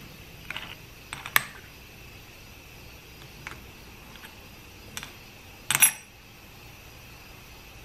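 Small steel transmission valve body parts clicking and clinking against each other and a hard surface: a few scattered light clicks, then a short, louder metallic clatter near the end.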